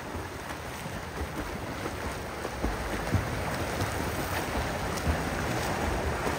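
Swimmers splashing through a pool in front crawl, a steady wash of water noise that grows slightly louder, with a few low thumps on the microphone.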